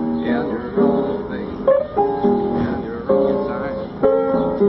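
Street piano played live: sustained chords struck one after another, with notes ringing between them.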